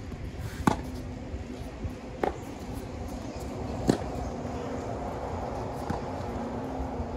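Tennis balls struck by racquets in a baseline rally: four sharp pops about one and a half to two seconds apart. The two near hits are loud and the two from the far end of the court are fainter.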